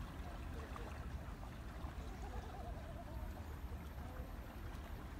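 Faint river water sloshing and trickling around a hand held in the water beside a kayak hull, over a steady low rumble.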